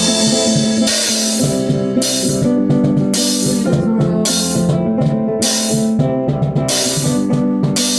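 A rock band playing an instrumental passage: guitar chords held over a drum kit, with cymbal crashes about once a second.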